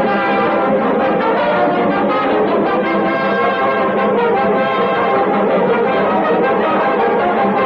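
Orchestral music led by brass, holding long sustained chords.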